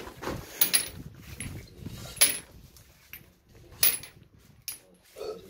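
Metal pipe fittings clinking as they are picked out and counted: several separate sharp clinks, one every second or so.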